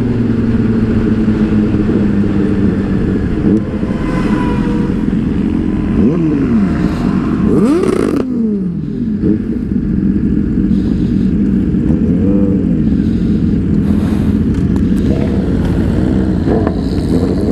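Motorcycle engine running steadily on the road, with other motorcycle engines rising and falling in pitch about six to eight seconds in and again near twelve seconds.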